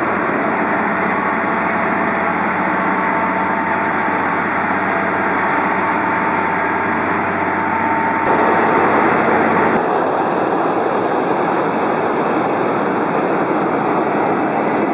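Jet airliner engines running loudly: a dense roar with a faint steady whine. The sound shifts abruptly about eight seconds in and again a second or so later.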